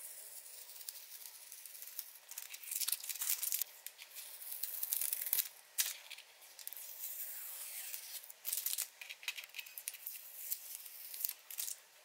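Scratchy strokes of a drawing or painting tool rubbing across the paper or canvas surface, coming in irregular bursts of varying length.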